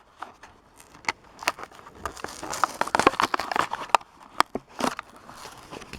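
Toy packaging being handled and opened by hand: irregular crackles and clicks of plastic and cardboard, busiest from about two to four seconds in.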